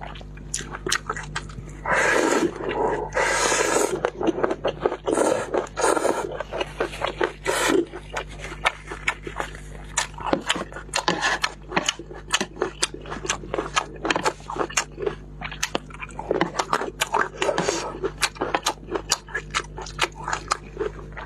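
Close-miked eating of spicy instant noodles with fresh chili rings: wet chewing and crunching clicks throughout. Several longer loud slurps come about two seconds in, around six to eight seconds, and again past sixteen seconds.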